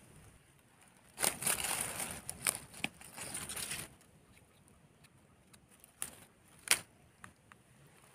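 Dry eucalyptus leaf litter and twigs crackling and rustling for a few seconds, then two short sharp clicks a little later.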